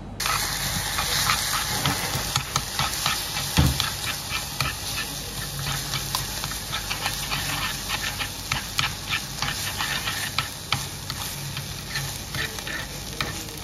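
Seafood fried rice sizzling and crackling in a hot stone bowl as it is stirred with a spoon, with one dull knock about three and a half seconds in.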